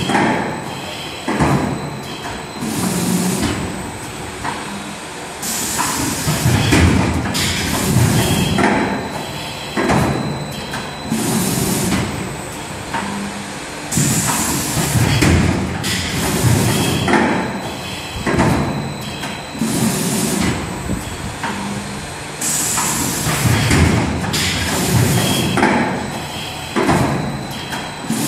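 Motorcycle brake-cable wire melting-cut and bumping machine running through its work cycle: repeated sliding and clunking of its moving parts with short bursts of hiss every couple of seconds.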